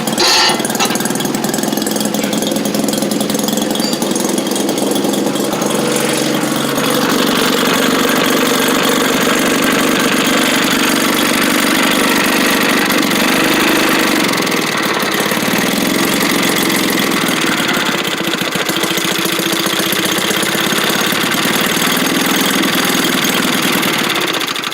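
Maytag 72 twin-cylinder two-stroke gas engine on a wringer washing machine, running steadily. The engine has been hard to start and struggling for fuel, and this is the best it has run all day.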